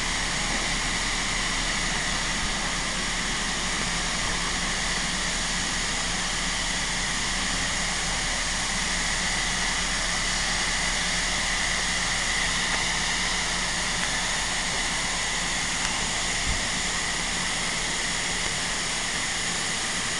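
Nickel Plate Road No. 765, a 2-8-4 Berkshire steam locomotive, blowing off its excess built-up steam as a loud, steady hiss while it stands and cools down.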